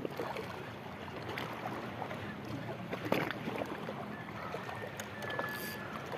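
Shallow sea water lapping gently over shore rocks, a steady wash with small ticks and one sharper knock about three seconds in.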